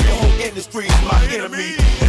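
Hip hop music: rapping over a heavy bass drum that hits in pairs, a pair about every second.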